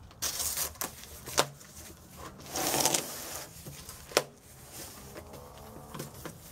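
Cardboard shipping box being opened by hand: rasping tears and scrapes of the box top and its tape, with two sharp clicks about a second and a half and four seconds in.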